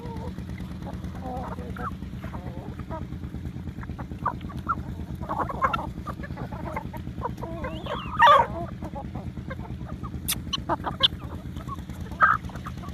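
Mixed flock of Aseel chickens and guinea fowl feeding on grain, giving scattered short calls. One loud, harsh squawk comes about eight seconds in.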